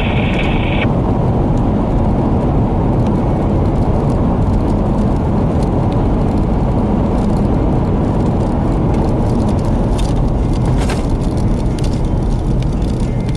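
Severe storm wind gusting at up to about 78 mph, a loud steady low rush, with a few sharp clicks about ten to eleven seconds in.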